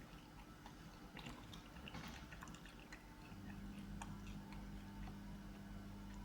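Faint, close-miked chewing of fried egg: soft wet mouth sounds and small scattered clicks. A low steady hum comes in about halfway through.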